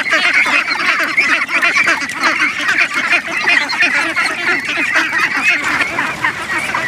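A large flock of brown, mallard-patterned domestic ducks quacking all at once: a dense, continuous din of overlapping calls. The hungry flock is clamouring at feeding time.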